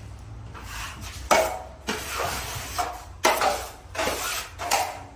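Metal drywall taping knife scraping and clinking against a mud pan as joint compound is loaded and worked, in about six separate strokes.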